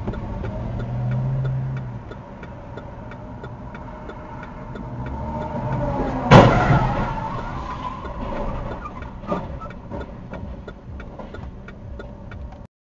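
Road traffic picked up by a dashcam, with a faint regular ticking, then one sharp, loud car-collision crash about six seconds in that dies away over about a second. A smaller knock follows a few seconds later.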